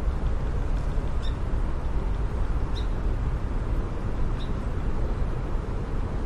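Park ambience: a steady low rumble with a bird's short, high chirps repeating about every one and a half seconds.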